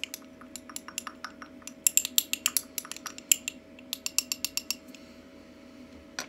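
Glass stirring rod clinking against the side of a small glass beaker as an oil blend is stirred: quick, irregular ticks, several a second, that stop about five seconds in. A faint steady hum lies underneath.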